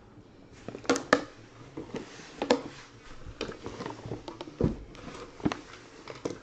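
Sealed cardboard boxes of baseball cards being handled and set down on a table: a series of irregular light knocks and scrapes.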